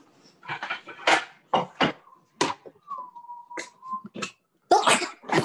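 Kitchen clatter of plates and utensils: a string of short sharp knocks and clinks, the loudest near the end. A thin steady whine lasts about a second in the middle.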